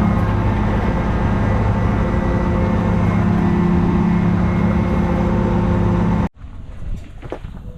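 Heavy diesel engine of farm machinery running steadily at a constant speed, cutting off abruptly about three-quarters of the way through, followed by a few light clicks and knocks.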